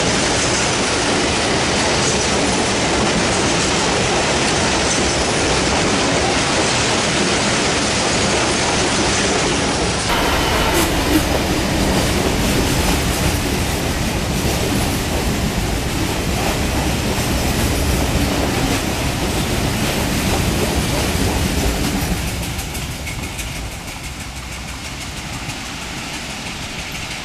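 Long rake of bogie box wagons on a freight train rolling past: a steady rumble and clatter of wheels on the rails, fading from about 22 seconds in as the train draws away.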